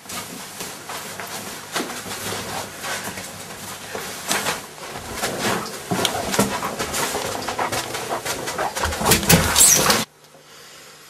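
Rustling and a quick, irregular run of knocks and thumps from a mock fistfight, cutting off abruptly near the end.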